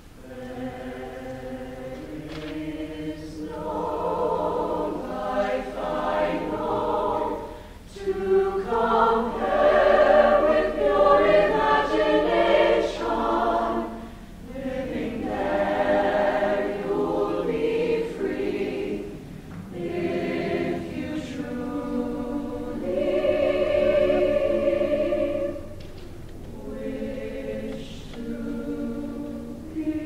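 A high school concert choir of mixed voices singing in phrases separated by short pauses. It comes in softly at the start and swells to its loudest around the middle.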